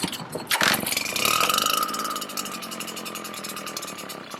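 Redmax EBZ7500 backpack blower's two-stroke engine pull-started cold on a newly fitted aftermarket carburetor. It catches about a second in and runs, with the blower's fan whine, revving up and then settling to a slightly lower, steady speed.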